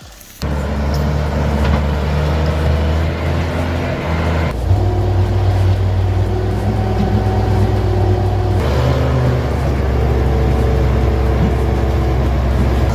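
Heavy diesel vehicle engine running steadily with a low hum. It starts suddenly about half a second in, and its note changes abruptly twice, about four and a half and eight and a half seconds in.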